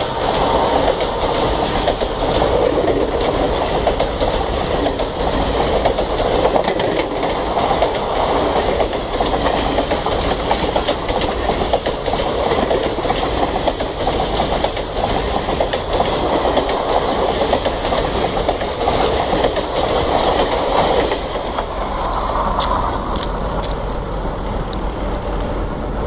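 Passenger coaches of a train running past close by: a continuous rumble and clatter of wheels on the rails. It grows somewhat quieter about 21 seconds in.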